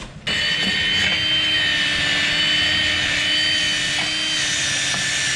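Cordless grinder with a small disc running at speed against the end of a steel exhaust extractor pipe, dressing the slip joint so the pipes slide in and out. A steady high whine that starts suddenly just after the start.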